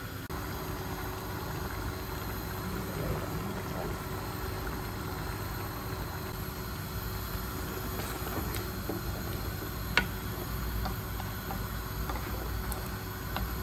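Steady low mechanical kitchen hum around a pot of curry cooking on the stove, with one sharp knock about ten seconds in and a few lighter ticks near the end as the curry is stirred with a wooden spoon.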